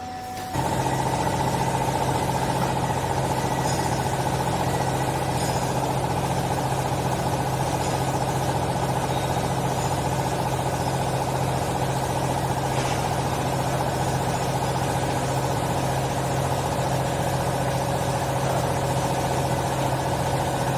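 Hydraulic clothes baler's motor-driven pump running steadily, stepping up to a louder, even hum with a steady whine about half a second in, as a hydraulic pump does when it comes under load to drive the pressing ram.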